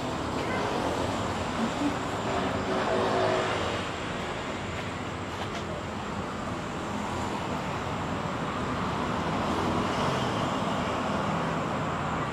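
Steady road traffic noise, a continuous hum of passing vehicles, a little louder about three seconds in.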